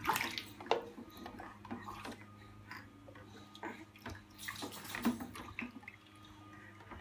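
Water splashing and dripping in a stainless steel sink as babies play in it, with small knocks of plastic bath toys and a plastic cup being dipped and poured. The splashes are irregular, with a louder one at the very start and a few more about two-thirds of the way through.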